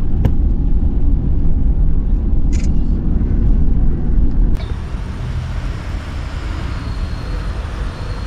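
Steady low road and engine rumble heard inside a moving car's cabin, with a single click near the start. About four and a half seconds in it cuts off suddenly to a lighter, steady outdoor hiss.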